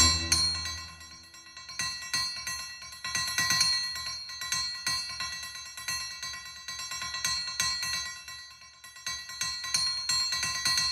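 Background music of struck, bell-like tones ringing and repeating.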